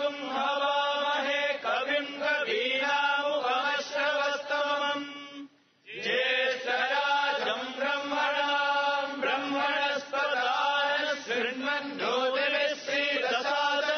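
Vedic chanting in Sanskrit: a voice intoning on a few held pitches with short glides between them. It breaks off briefly about five and a half seconds in, then resumes.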